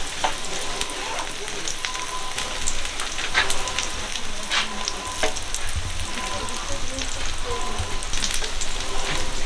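Egg-battered jeon frying in oil on a flat griddle: a steady sizzling hiss with scattered sharp pops and clicks.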